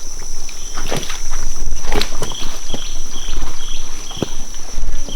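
Footsteps in rubber boots squelching and thudding through deep rainforest mud, in irregular steps. A steady high insect drone runs underneath, and from about two seconds in a short chirp repeats about three times a second.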